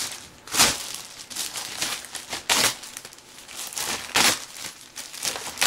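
Packaging being handled and pulled off a boxed subwoofer, crinkling and rustling in uneven bursts, the loudest about half a second in and about four seconds in.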